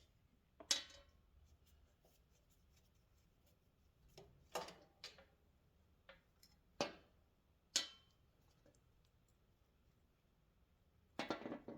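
Faint, scattered clicks and light metallic clinks of hand tools and small engine parts, about five in all, a few with a short ring, as the air filter cover and carburetor fasteners are taken off a small engine. A quick cluster of ticks comes near the end.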